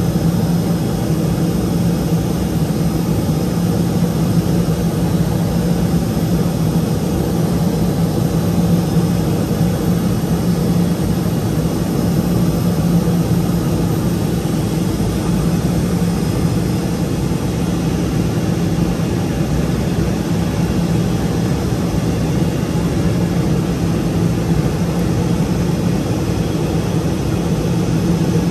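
The Rolls-Royce (Allison) 250 turboprop of a Cessna P210 Silver Eagle running steadily, heard from inside the cockpit: an even drone with a strong low hum.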